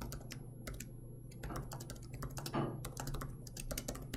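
Typing on a computer keyboard: quick, irregular runs of key clicks as a line of code is entered.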